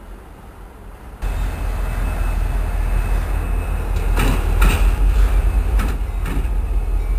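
Metra EMD F40PH-2 diesel locomotive passing close, its 16-cylinder two-stroke engine giving a deep, steady rumble that becomes much louder about a second in. A handful of sharp clacks come in the middle, typical of the wheels crossing rail joints.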